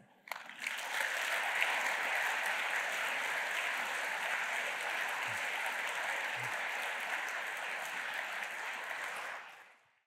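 Audience applauding at the close of a talk. The clapping swells in about half a second in, holds steady, and fades out near the end.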